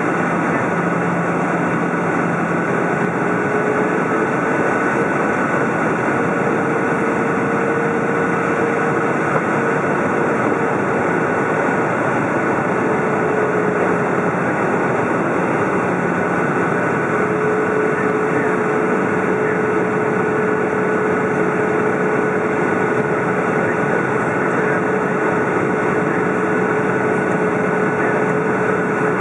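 Cabin noise inside a Boeing 737 descending on approach: a steady roar of rushing air and its CFM56 turbofan engines, with faint engine hums, one of which shifts slightly in pitch a few times.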